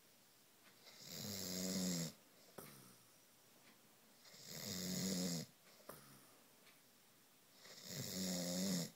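A man snoring loudly in his sleep: three snores about three and a half seconds apart, each a low buzzing tone that swells over about a second and then cuts off sharply, with quiet between.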